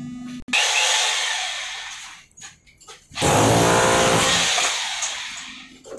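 Corded electric hammer drill chiselling into a tiled masonry wall, run in two bursts: one about half a second in and one about three seconds in. Each burst starts suddenly as rapid, even hammering and fades away.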